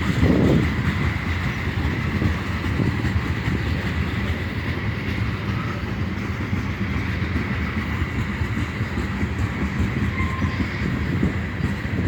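Freight train cars rolling past, a steady rumble of steel wheels on the rails with some clickety-clack over the rail joints and a faint steady high whine.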